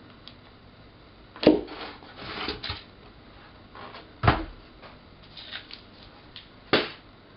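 Cardboard packaging being handled: three sharp knocks, about a second and a half, four and almost seven seconds in, as parts are set down, with cardboard scraping and rustling between them as the box insert is lifted out.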